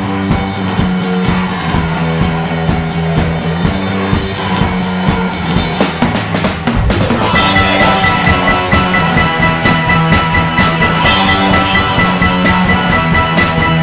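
Rock band playing with a drum kit keeping a steady beat under repeating low notes. About seven seconds in, a steady high note joins and the music gets louder.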